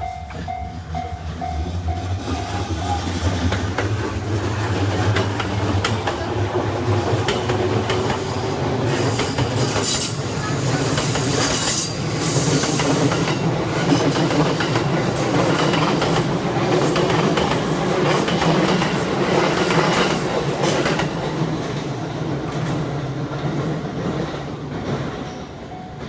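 A JR Yokosuka Line electric train passes over the level crossing, its wheels clattering over the rail joints, with high-pitched wheel squeal around the middle. The passing builds up, holds, and fades near the end. The crossing's ringing warning bell is heard only at the start.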